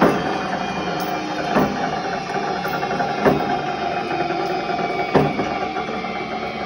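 Vaughn stringer pointer running: a steady motor and gear hum with a knock about every two seconds.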